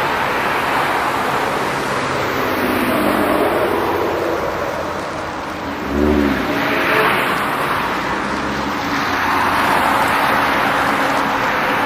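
Car engines running and cars driving past, a steady mechanical rumble with a short louder burst about six seconds in.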